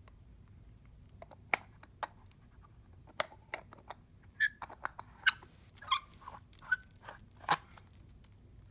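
Plastic parts of a rechargeable LED table lamp clicking, knocking and scraping as they are handled. There are about a dozen sharp, irregular clicks, a few with a short squeak.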